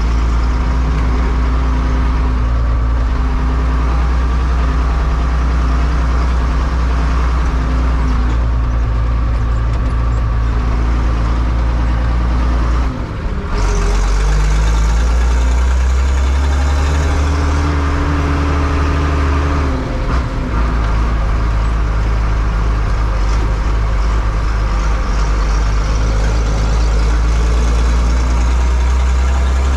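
Fiatagri 100-90 tractor's six-cylinder diesel engine running under way, heard from inside the cab. The engine note dips briefly twice, a little before halfway and again about two-thirds through, each time picking straight back up.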